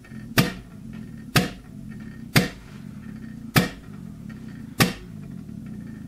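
Five sharp metallic clacks about a second apart over a low steady hum: the strokes of the hydraulic pump building pressure on a ratchet clamped in a torque-test rig.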